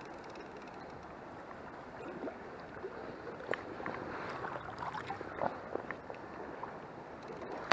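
Small river flowing, with irregular splashing and gurgling of water starting about two seconds in.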